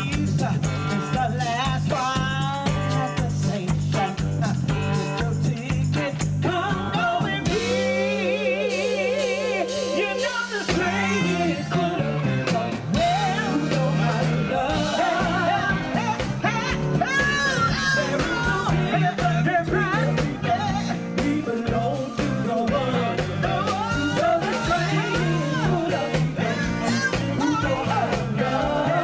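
Live gospel singing: several women's voices, a lead over harmonies, backed by a band with drums. About eight seconds in a held, wavering note sounds for a few seconds.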